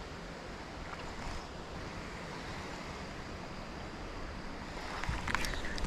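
Steady outdoor wind and water noise with wind on the microphone, and a few faint clicks and rustles near the end.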